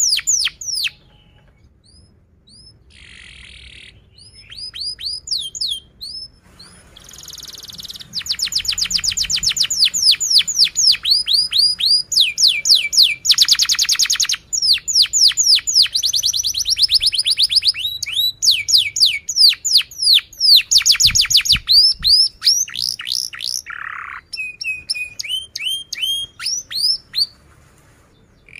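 Domestic canary singing: after a few scattered notes, a long song of rapid trills, runs of quick falling high notes repeated many times a second with short pauses between runs.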